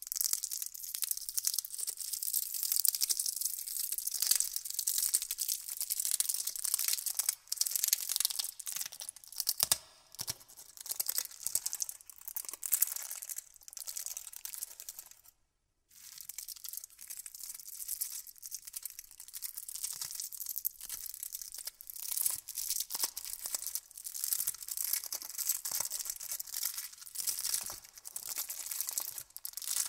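Candy wrappers crinkling and crackling close up: a dense, continuous run of fine crackles, broken once by a brief silent gap about halfway through.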